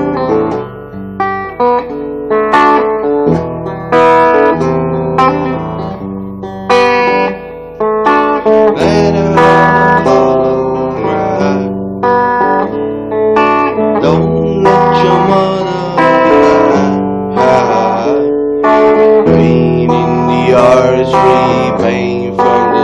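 Instrumental passage of a song: acoustic guitar playing a run of plucked and strummed notes, with a wavering melody line in the second half.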